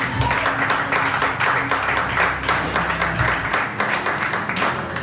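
Audience applauding steadily, with music playing low underneath.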